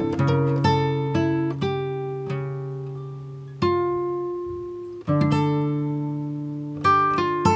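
Background music of plucked acoustic guitar: notes and chords that ring out and fade, with fresh strums about three and a half seconds in, again at five seconds, and near the end.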